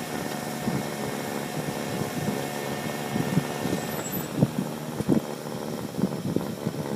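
An engine running steadily at an even speed, with a few short knocks over it.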